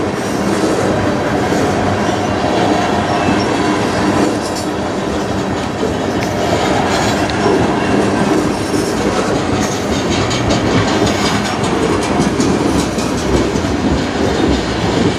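Tank cars of a freight train rolling past close by: a steady rumble of steel wheels on rail, with rapid clicking and clattering from the wheels and couplings.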